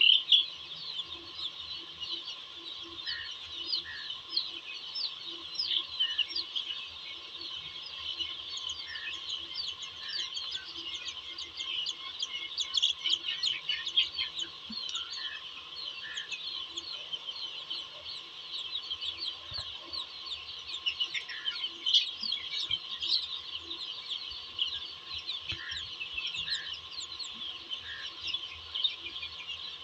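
A large flock of young chicks peeping continuously in a dense, high-pitched chorus, with a few lower calls now and then.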